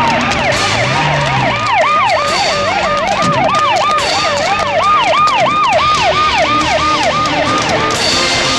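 Police vehicle sirens going in rapid up-and-down sweeps, about three a second, with a second siren fainter and higher behind; they stop near the end, with scattered sharp knocks.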